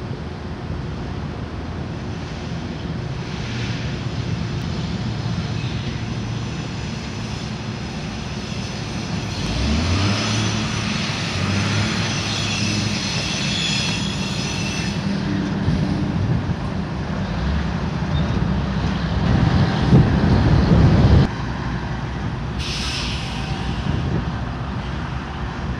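Norfolk Southern diesel locomotives running light at low speed, their engines rumbling and growing louder as they approach. High-pitched wheel squeal runs from about ten to fifteen seconds in. A louder low rush around twenty seconds in cuts off abruptly.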